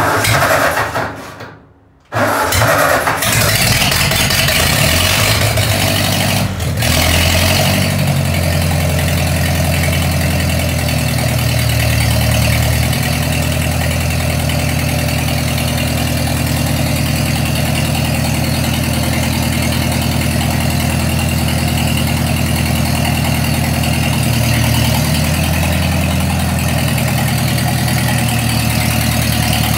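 Ford 2N tractor's four-cylinder flathead engine being cranked by the starter for about two seconds, then catching and running. It settles into a steady idle, with its speed shifting a little a few times.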